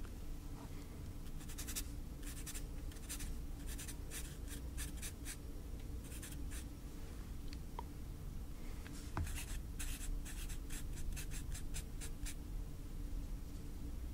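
Writing by hand on paper: a run of short, scratchy pen strokes with a pause around the middle, as answers are noted down.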